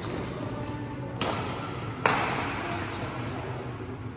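Badminton rackets striking the shuttlecock in a quick rally: several sharp hits, the loudest just after two seconds in, echoing in a large hall. Court shoes squeak on the floor at the start and again about three seconds in.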